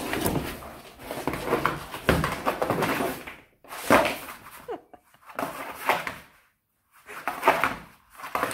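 A whippet puppy's paws scrabbling and skidding on a large flat cardboard carton, with the cardboard scraping and thudding. The sound runs nearly unbroken for about three seconds, then comes in short bursts of a second or so with quiet gaps between.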